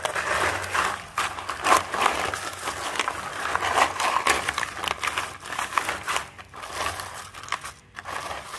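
Salted ice cubes crunching and knocking together in a plastic basin as a tied plastic bag of milk is pushed down among them and worked in by hand, the bag crinkling, in a steady run of irregular rustles and crunches.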